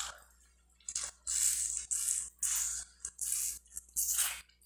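Close-up wet mouth sounds of sucking and nibbling meat off a chicken bone: a run of about six short slurps, each under half a second.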